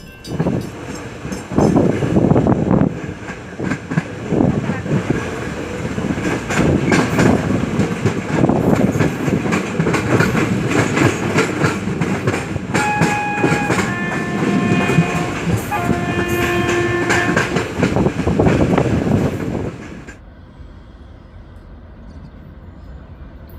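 A train passing at speed, its wheels clattering rapidly over the rail joints, with three blasts on its multi-tone horn partway through. About twenty seconds in the clatter cuts off suddenly, leaving a quieter steady rumble.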